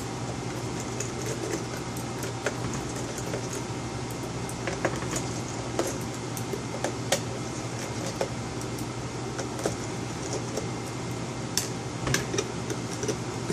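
Phillips screwdriver backing small screws out of the memory cover on an Itronix IX270 laptop's underside: scattered light clicks and ticks, a few close together near the end, over a steady low hum.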